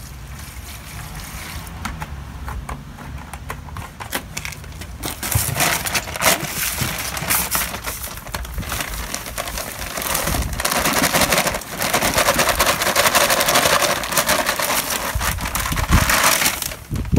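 The liquid polymer part of SikaTop 123 Plus is poured from a plastic jug into a plastic bucket. Then the dry mortar powder is tipped from its paper bag into the bucket: a rushing hiss with the bag crinkling and crackling, louder in the second half.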